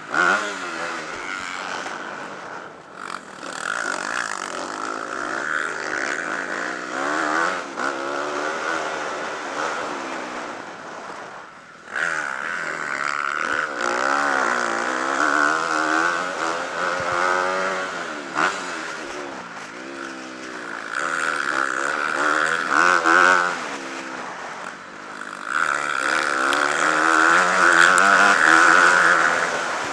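Motocross bike engine, recorded from the rider's own bike, revving up and falling back again and again as it accelerates and shifts along the track, with a rushing noise over it. Near the middle it drops off briefly, then comes back suddenly at full revs.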